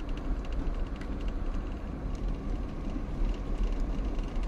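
Car cabin noise while driving on rough, patched asphalt: a steady low rumble of engine and tyres with a few faint light rattles now and then.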